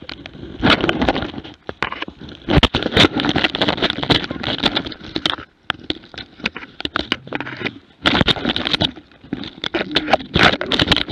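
A GoPro strapped to a Jämthund hunting dog being knocked and scraped while wolves attack the dog: a jumble of bumps, scraping and rustling as fur and bodies rub against the camera. The noise comes in irregular bursts with a few short lulls.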